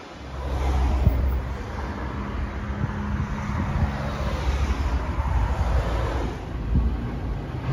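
Road traffic going by, with cars passing, over a heavy low rumble of wind on the microphone.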